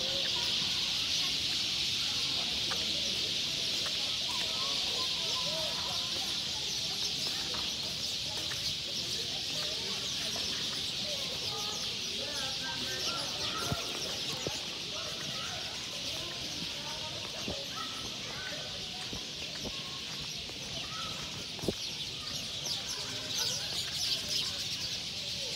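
Steady high-pitched insect chorus in the garden trees, with many short bird calls scattered through it.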